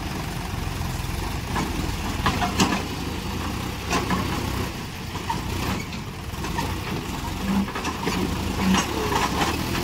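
John Deere 5205 tractor's three-cylinder diesel engine running steadily under heavy load, straining to pull a loaded trolley bogged in wet sand. A few short sharp clacks break through it.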